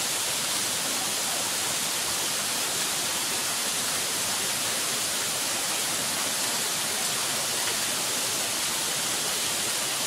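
Small waterfall cascading in tiers over rocks into a pool, making a steady, even hiss of falling water.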